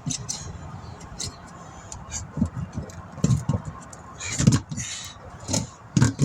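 Irregular metallic knocks and clicks with a few dull thumps: hand work mounting a tire onto its wheel rim.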